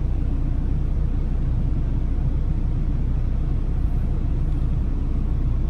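Steady low rumble of an idling truck engine, even throughout.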